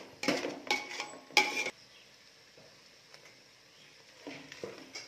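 Perforated metal spoon scraping and stirring masala-coated mutton in a metal pot: three quick scrapes in the first second and a half, a pause, then a couple of softer scrapes near the end.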